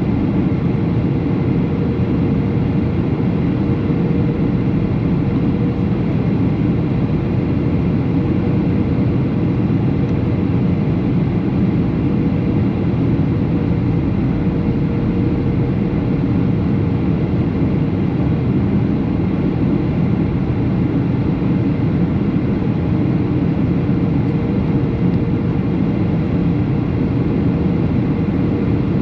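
Steady in-flight noise of a Boeing 737 airliner: the rush of its engines and airflow, unchanging, with a faint steady hum over it.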